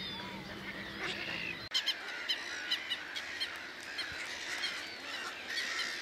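Nesting waterbird colony in a reedbed: many short bird calls and chirps overlapping, growing busier about two seconds in.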